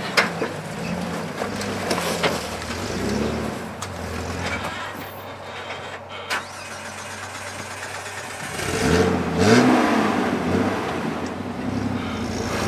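A rock-crawling Jeep's engine revving up and down at low speed, with a louder, rising rev about nine seconds in. A few sharp knocks stand out, near the start, about two seconds in and about six seconds in.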